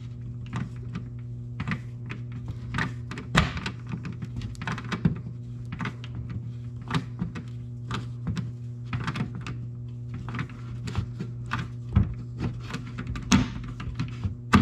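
A hand screwdriver driving a screw into a plastic grille frame: a run of irregular clicks and small knocks as the screw is turned, with a few sharper knocks about three and a half, twelve and thirteen and a half seconds in. The screw is going into plastic that the installer fears may crack. A steady low hum runs underneath.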